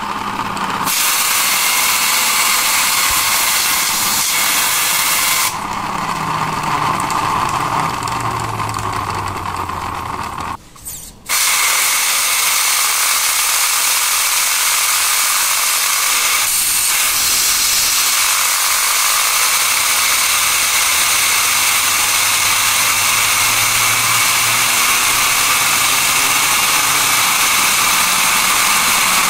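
Compressed air from a duster can's straw hissing at a mouse scroll wheel and spinning it fast, the wheel's notches making a ratcheting buzz under the hiss. The buzz falls in pitch about a third of the way in, the air breaks off briefly, then the hiss resumes and the buzz climbs again later.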